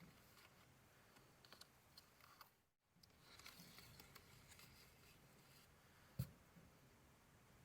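Faint handling of paper craft materials: light clicks and rustles, a brief drop to silence near the middle, and one sharper tap about six seconds in.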